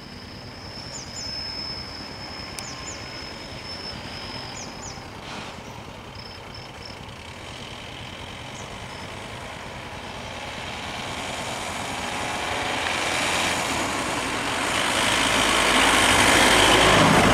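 Road vehicles' engines idling, then a vehicle driving past close by, getting steadily louder over the second half and loudest near the end. A thin, high, steady whine with short chirps is heard through the first few seconds.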